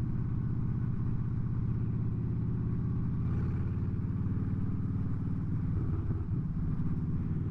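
Motorcycle engine running steadily at low, even revs, with no rise or fall in pitch.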